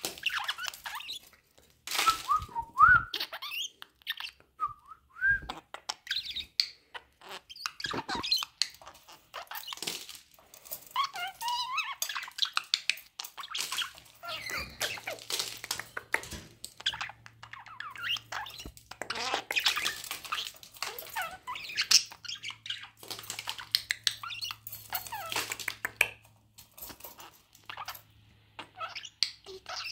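Budgerigar chattering, short squeaky chirps and warbles mixed with many quick clicks.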